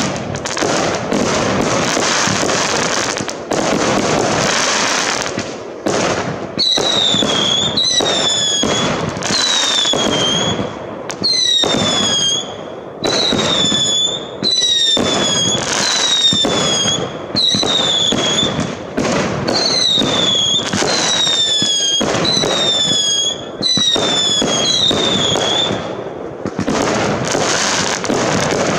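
Fireworks going off. Dense banging and crackling bursts come first. Then a long run of shots follows, each trailing a falling high-pitched whistle, about one every second and a half. Dense bursting and crackling return near the end.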